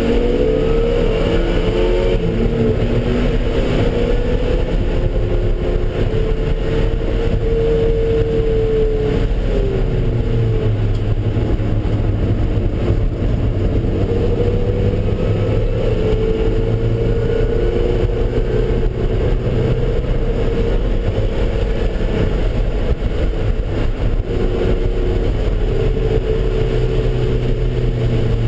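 Vehicle engine pulling hard and backing off on a race track, its pitch climbing under acceleration and dropping under braking several times, over a steady rush of road and wind noise.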